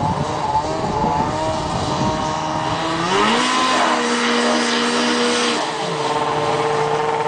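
Snowmobile engine running through an MBRP aftermarket exhaust can: it revs up about three seconds in, holds the higher speed for a couple of seconds, then drops back.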